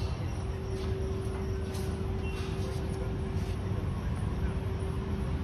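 Steady low background rumble with a constant mid-pitched hum, like distant traffic mixed with running machinery.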